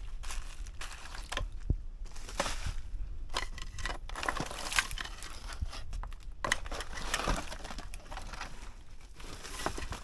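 Clutter being handled during a house clean-out: irregular rustling and crinkling with scattered knocks and clicks.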